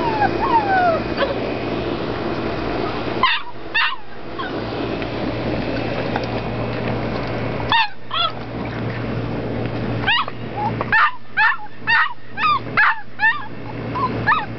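Labrador retriever puppy crying: faint falling whines at first, then pairs of short, high yelps and a quick run of about seven near the end.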